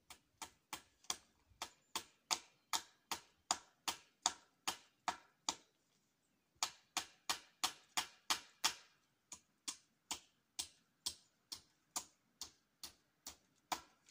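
Hammer driving nails into a wooden post, steady strikes about three a second, with a pause of about a second midway before the hammering resumes.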